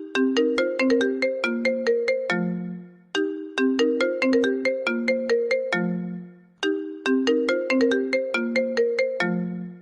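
Smartphone ringtone: a short melody of quick, plucked-sounding notes repeated three times, each phrase ending on a lower held note, and stopping near the end.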